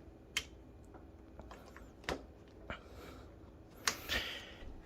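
Plastic adhesive child-safety strap lock being handled and pressed onto a freezer door: a few faint clicks and taps, then a brief rubbing sound near the end.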